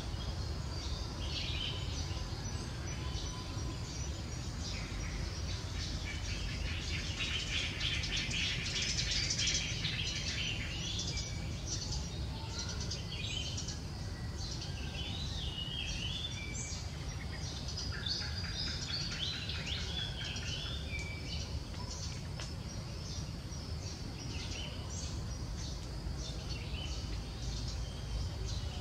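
Birds chirping and calling in short warbled phrases, with a busy stretch of rapid trilling from about seven to ten seconds in, over a steady low rumble of outdoor background noise.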